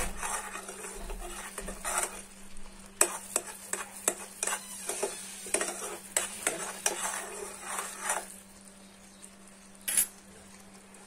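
Steel spoon clinking and scraping against a steel pot while stirring boiling sugar syrup that is thickening into sugar wax near the end of cooking. The stirring stops about eight seconds in, leaving the faint bubbling of the syrup, with one more clink near the end.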